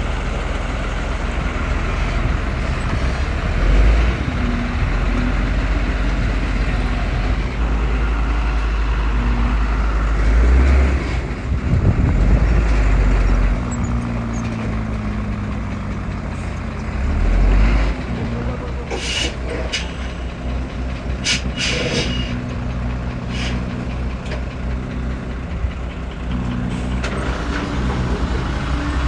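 Diesel engines of a bulldozer and dump truck running under load, with engine speed rising and falling. Near the two-thirds mark come several short, sharp hisses or squeals.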